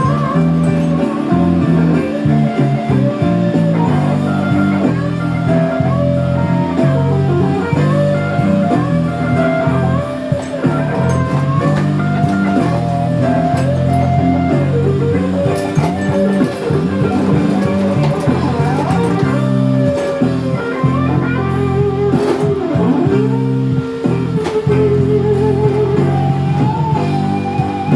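Blues-rock music: an electric lead guitar plays bending notes over a steady bass and rhythm backing.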